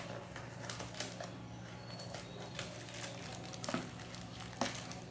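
Plastic toy packaging being opened and handled: scattered crinkles and a few sharp clicks, the two sharpest near the end, over a steady low hum.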